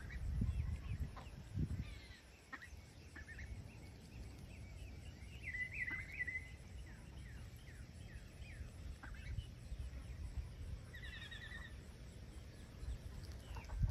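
Scattered short bird chirps and calls over a low rumble, with a louder warbling call about six seconds in and a quick rapid trill about eleven seconds in.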